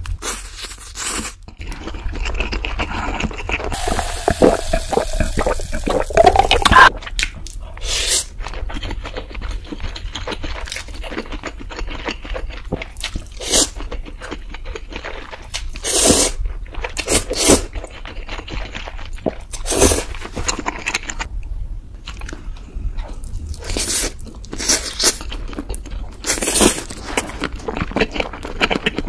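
Repeated crunching and scraping sounds, with a short upward-sliding squeal about five to seven seconds in.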